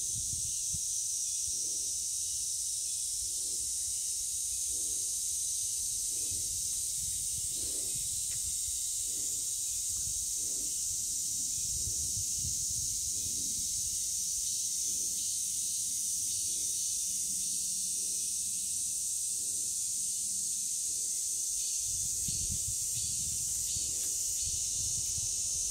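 A steady high-pitched hiss, with low rumbling that grows near the end.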